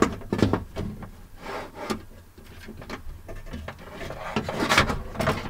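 Power-window regulator and motor assembly being worked into place inside a truck door, knocking and scraping against the door's inner frame. A quick cluster of clicks and knocks at the start, then scattered rubbing, with a louder scrape near the end.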